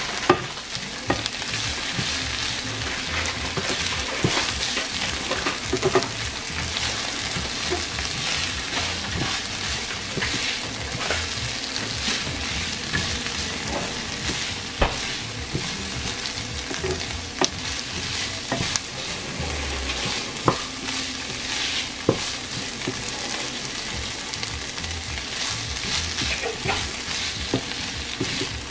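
Onions and frozen green peas sizzling in oil in a nonstick frying pan while a wooden spatula stirs them, with frequent sharp taps and scrapes of the spatula against the pan.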